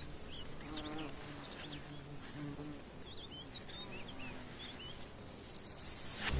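Poppy bee buzzing in short bouts around its nest burrow, a low hum that starts and stops, with faint bird chirps behind. A hiss swells near the end.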